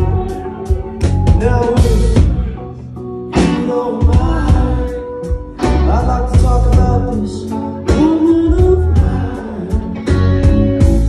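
Live rock band playing loud: electric guitar over a drum kit beating a steady rhythm, with a man singing.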